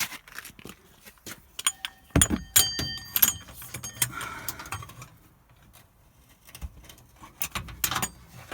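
Metal hand tools clinking and rattling against each other. A heavy knock about two seconds in is followed by a cluster of ringing metallic clinks, then a quieter stretch and more scattered clicks near the end.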